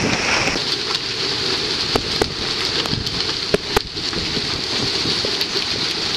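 Heavy hailstorm with rain: a steady hiss of falling hail and rain, with several sharp knocks between about two and four seconds in as large, near golf-ball-size hailstones hit hard surfaces.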